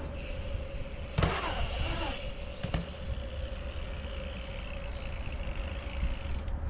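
Wind rumbling on the microphone with a bike's tyres rolling over concrete, a sharp knock about a second in, and a faint steady hum throughout.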